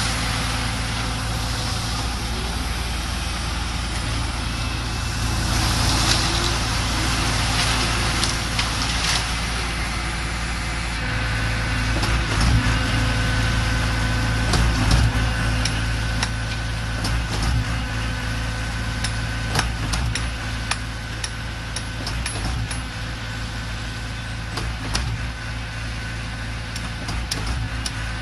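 Diesel engine of a concrete mixer pump running steadily, with scattered knocks and clatter. A steady high whine joins it about eleven seconds in.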